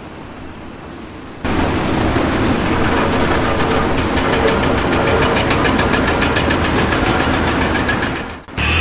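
A machine running with a steady, rapid rhythmic clatter. It starts abruptly about a second and a half in and cuts off shortly before the end.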